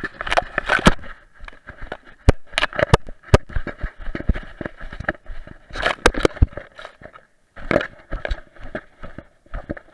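Grass rustling and scraping against a camera worn by a dog as it moves through tall grass, with irregular sharp knocks and clicks from the camera mount jostling. There is a short lull about seven seconds in.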